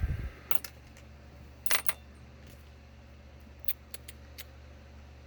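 Small metal clicks and clinks as lock-picking tools and a padlock are handled: a pair of light clicks, then a louder cluster of clinks about two seconds in, then a few lighter ticks.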